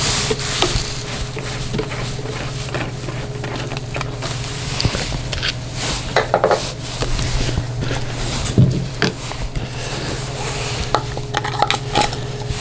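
Motor oil being poured through a funnel into a small generator's crankcase: a steady pouring hiss with scattered clinks and knocks from the bottle and funnel being handled, over a low steady hum.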